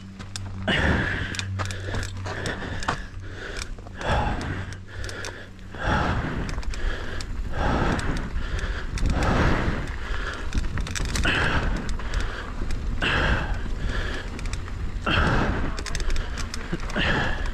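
A mountain biker breathing hard, a heavy breath about every one and a half to two seconds, over the clicks and rattle of a Rocky Mountain Instinct full-suspension mountain bike riding a rough dirt trail. A low tyre and wind rumble grows much louder from about six seconds in as the bike picks up speed.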